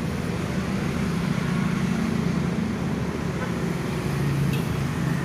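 Steady road traffic going past, a continuous low rumble of engines and tyres.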